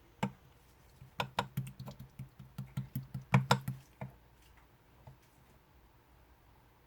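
Grape-coloured clear slime being pressed and squished by hand, giving a quick run of sharp clicks and pops over about four seconds, then stopping.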